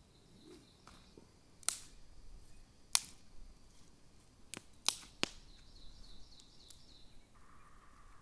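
Dry sticks snapping as they are broken by hand for a campfire: five sharp cracks, the last three close together about halfway through.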